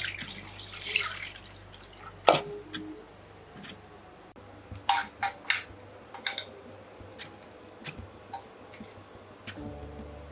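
Milk pouring into a pot, splashing for about a second and a half, followed by scattered sharp clicks and taps of kitchenware, several in quick succession about five seconds in.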